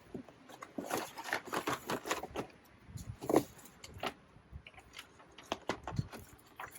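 Craft materials being rummaged through and grabbed from a basket: irregular rustling of paper and clattering of small objects being handled.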